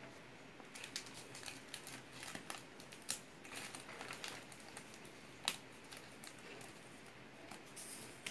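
Hands handling a sealed cardboard product box and peeling off its plastic shrink wrap: faint plastic crinkling with scattered small taps and clicks, the sharpest click about five and a half seconds in.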